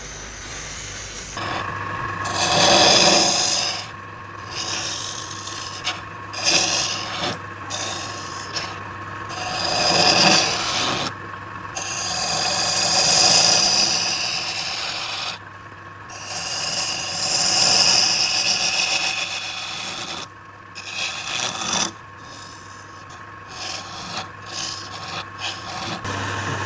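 Wood being worked with a hand tool in a series of long scraping strokes with short pauses between them, over a steady hum.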